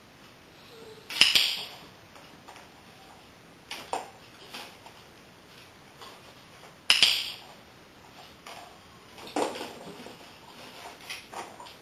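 Dog-training clicker clicking sharply twice, about six seconds apart. Each click marks a behaviour the dog is about to be rewarded for. Softer taps and scuffs come between and after the clicks as the dog moves about the box on the tiled floor.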